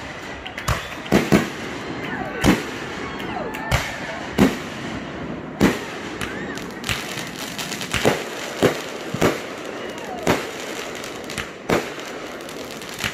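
Consumer aerial fireworks going off: a string of sharp bangs at uneven intervals, roughly one or two a second, as shells burst overhead.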